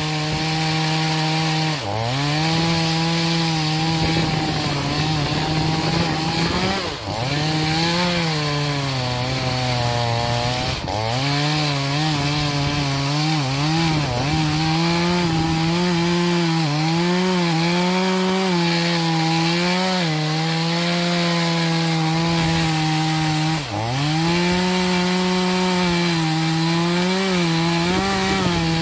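Troy-Bilt TB4218 42cc two-stroke chainsaw at full throttle, cutting into an oak stump. The engine pitch sags several times as the chain bites under load, then climbs back.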